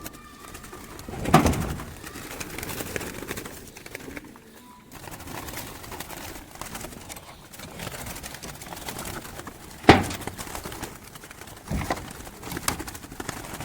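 Doves cooing, with a few sharp knocks or clicks: the loudest about ten seconds in, and smaller ones near the end.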